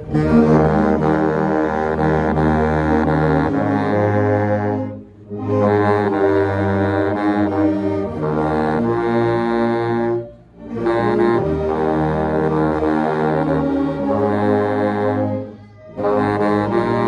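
Baritone saxophone playing a hymn up close, with other saxophones and brass of a church orchestra around it. The music goes in phrases broken by three short pauses, about 5, 10 and 15 seconds in.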